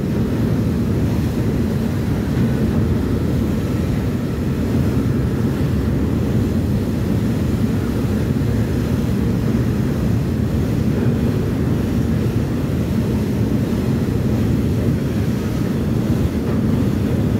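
Car ferry's engines and propellers running steadily under way as the boat pulls away from the dock, a low, even drone with the churning of the propeller wash.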